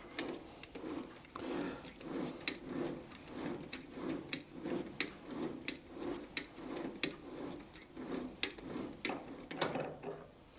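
M8 thread being cut by hand in the collar casting: a tap turned in short strokes, giving a rhythmic grinding pulse about every 0.7 s with sharp metallic clicks.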